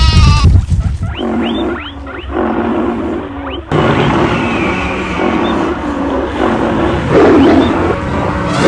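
Stampede sound-effect mix of animal calls: a few short rising-then-falling cries in the first seconds, then, from about four seconds in, a dense layer of growls and roars over a low rumble, with one loud roar near the end.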